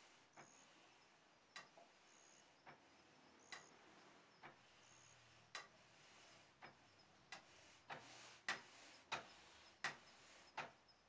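Wooden box bellows pumped to blow a charcoal forge: a soft clack with each stroke, about one a second, coming quicker and louder near the end, over a faint rush of air.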